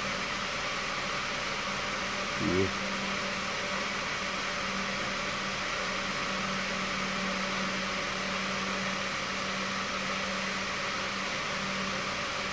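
Steady low hum with an even hiss over it, the background drone of a workbench room. A brief vocal sound comes about two and a half seconds in.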